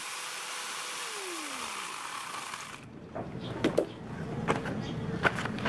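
Angle grinder fitted with a chainsaw attachment, running unloaded on a test spin after its chain was tightened, with a steady whine and hiss. About a second in it is switched off and the whine falls away as the chain coasts down. The hiss stops near three seconds, and scattered clicks and knocks follow.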